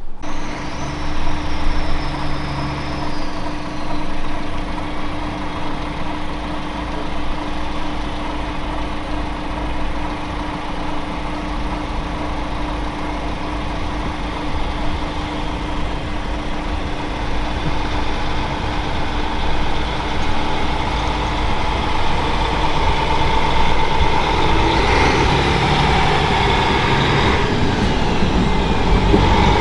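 Citylink tram-train's diesel engine running as the train moves off and rolls past: a steady low hum, getting louder with added higher whining tones in the last few seconds as it passes close by.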